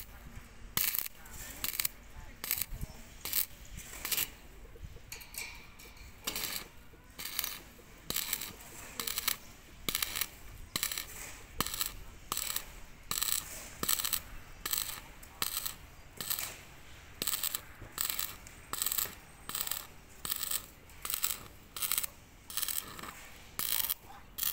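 Stick (arc) welding on a steel box-section beam: the arc crackles and sizzles in short bursts, one or two a second, as the rod is struck and broken again and again along the seam.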